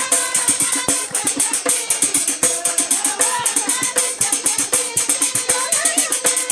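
Moroccan Amazigh folk song from Sbouya: fast, steady metallic percussion struck about six times a second, with women's voices singing over it.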